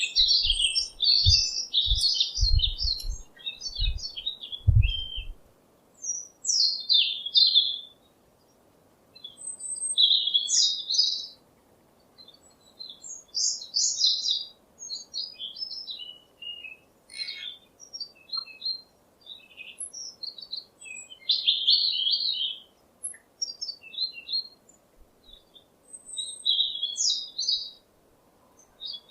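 Small songbirds chirping and twittering in quick high bursts with short gaps between them. Several dull low bumps sound in the first five seconds.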